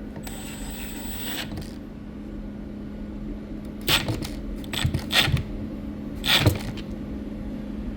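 Small metal clicks and scrapes as a steel washer and screw are handled and driven into a microwave door's plastic handle mount, a few sharp clicks between about four and six and a half seconds in.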